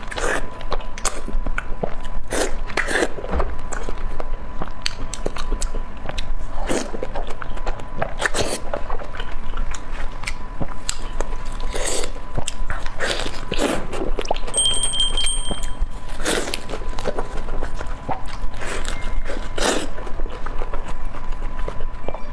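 Close-miked biting and chewing of Dongpo pork, glazed braised pork belly, with irregular sharp mouth clicks and smacks.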